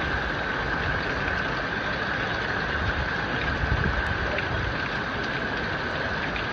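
Steady rushing noise of flash-flood water and rain over a flooded street, with a constant high tone underneath.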